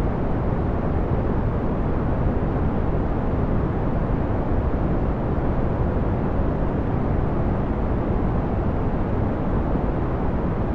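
Steady brown noise: an even, deep rumbling hiss with most of its energy in the low end.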